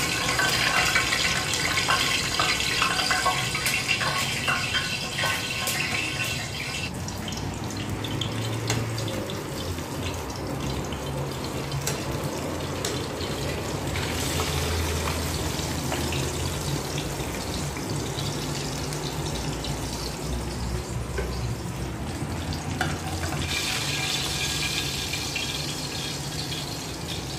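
Fish sizzling in hot oil in a frying pan, a steady hiss with scattered crackles and pops of spattering oil. The hiss is louder for the first several seconds and again near the end.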